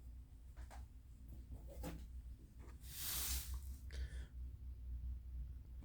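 Faint handling sounds of a MacBook Air's aluminium bottom panel being lifted off, with a brief scraping rustle about three seconds in and a shorter one about a second later, over a low steady hum.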